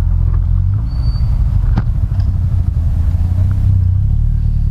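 Motorcycle engine idling steadily with a low rumble, with a single sharp click about two seconds in.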